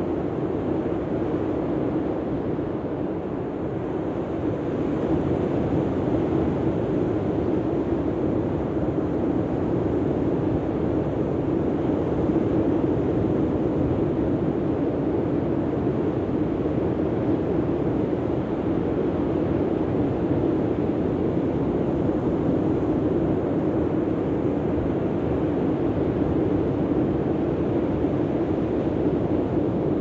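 Steady roar of breaking ocean surf and wind, getting slightly louder about five seconds in.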